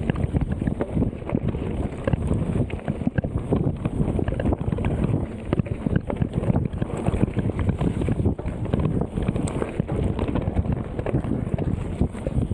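Mountain bike riding fast over a rough forest trail: wind noise on the microphone with continuous rapid rattling and knocks from the bike over roots and rocks.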